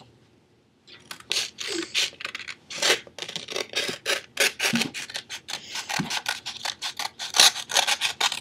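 Scissors cutting through printer paper: a steady run of short, rough snips, about three a second, starting about a second in.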